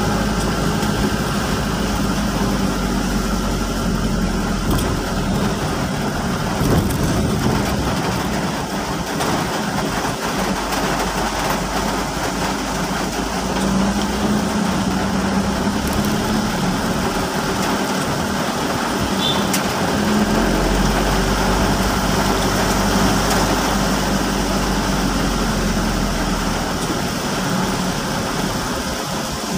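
A car driving in rain, heard from inside the cabin: the engine's low steady hum under a constant hiss of tyres on the wet road and falling rain.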